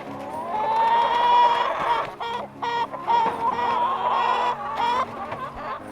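Chickens calling: a long, loud, high call that is held for several seconds, broken in the middle by a run of quick clucks.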